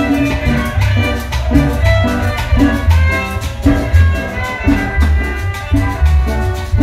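A chanchona, a Salvadoran folk dance band, playing a lively tune. A steady bass line and percussion keep an even beat under the melody.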